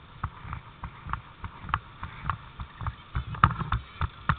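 Footsteps and camera-handling bumps while the camera is carried at walking pace: a string of short, dull knocks, about three a second and unevenly spaced, loudest a little past the middle.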